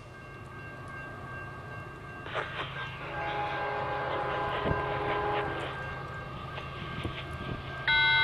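Diesel locomotive horn from a train still out of sight: a chord of several notes sounds for a couple of seconds in the middle over a low steady rumble, then a short, much louder horn blast comes right at the end.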